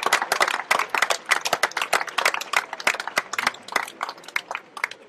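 Tennis crowd applauding, many hands clapping; the clapping thins out and dies away near the end.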